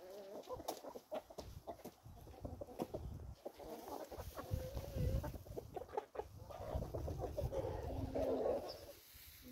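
A flock of chickens clucking as they forage, many short overlapping calls throughout. Stretches of low rumble come in the second half.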